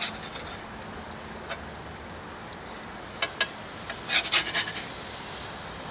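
A metal utensil scraping and clicking on a cast iron pizza pan as fish fillets are turned over. There are a few short scrapes a little past halfway and a brief cluster about two thirds in, over a steady background hiss.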